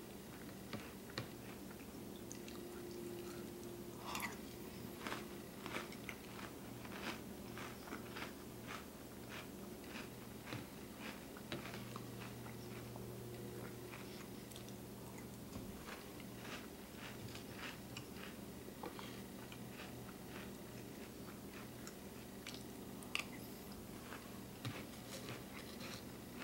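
Cinnamon Toast Crunch cereal crunching between the teeth as it is chewed, in short irregular crunches, with now and then a metal spoon clicking in the bowl, over a faint steady hum.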